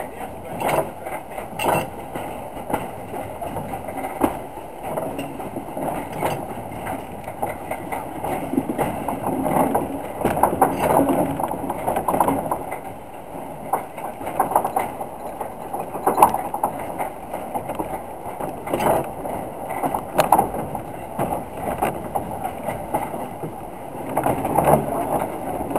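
Small steam locomotive on the move, heard from its footplate: a steady running rumble with clanks and knocks at uneven intervals from the wheels and motion.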